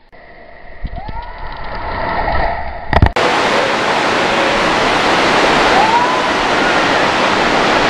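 A rushing sound that grows louder over about three seconds, broken by a sharp click. Then a loud, steady rush of noise follows, with a faint short whistle-like call rising and falling about halfway through.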